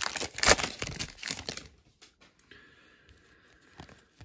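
Foil trading-card pack crinkling as the cards are pulled out of it, for about the first second and a half.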